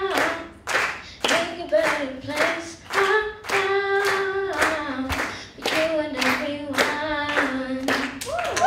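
A boy singing into a microphone, some notes held, while hands clap along in time, about two claps a second.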